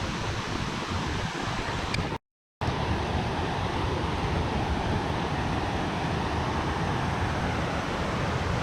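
Steady rushing of a river's water, broken by a brief dead-silent gap about two seconds in where the footage cuts, after which the rush carries on.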